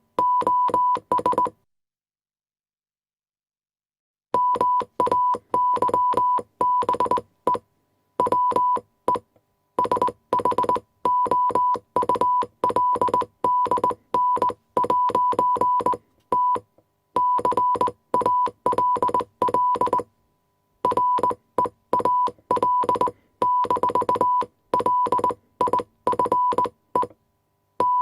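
Morse code sent as on-off beeps of one steady tone, short and long pulses in quick groups. A pause of a couple of seconds comes near the start, and shorter pauses come between groups later.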